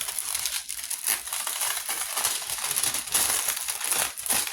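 Plastic cover sheet of a diamond-painting canvas crinkling and crackling with many small ticks as it is handled and pulled back.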